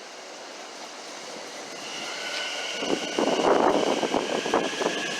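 A light-rail train coming through the station, growing steadily louder, with a steady high whine from about two seconds in and a loud clatter of wheels over the track in the second half.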